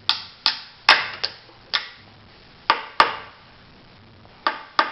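Tableware knocking during a meal: about ten sharp, irregular clicks and taps, a few of them in quick pairs.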